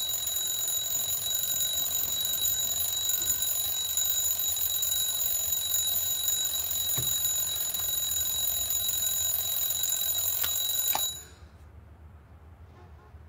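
Alarm clock ringing, a steady high-pitched ring that cuts off suddenly about eleven seconds in.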